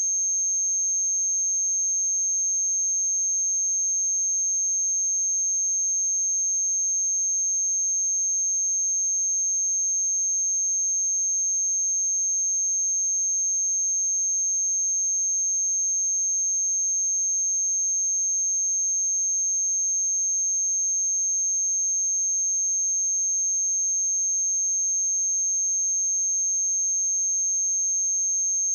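Pure 6394 Hz sine-wave test tone, a single steady high-pitched whistle held at constant level, used to test speakers and headphones.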